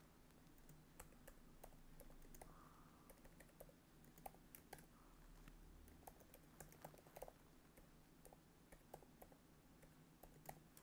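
Computer keyboard being typed on: faint, irregular keystrokes with short pauses between them.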